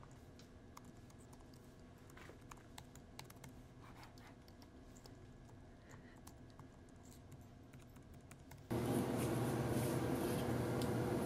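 Light typing on a low-profile Apple keyboard, soft key clicks at an uneven pace. About three quarters of the way through it cuts abruptly to a much louder steady hum and hiss.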